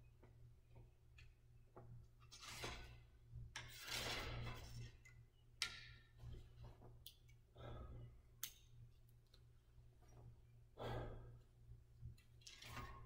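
Faint breathing: an archer's slow, deep breaths, about five in all, each lasting about a second. A couple of sharp clicks sound in between, over a steady low hum.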